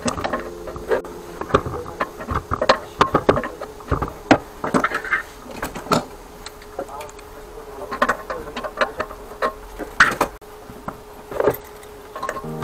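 Hand work on the brass fittings and corrugated flexible pipes of a floor-heating manifold: irregular clicks, taps and short scrapes of a tool and gloved hands on metal.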